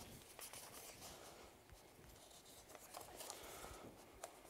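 Near silence with faint, intermittent rustling of paper notes being leafed through while a quote is searched for.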